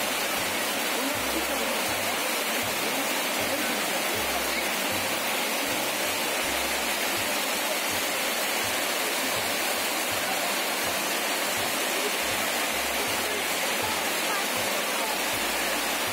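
Heavy rain pouring down steadily: an even, unbroken hiss of the downpour.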